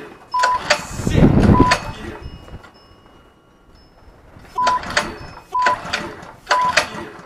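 Recoil starter of a Harbor Freight small engine pulled once about a second in, cranking the engine without it catching: it has no spark. Background music with a steady beat plays throughout.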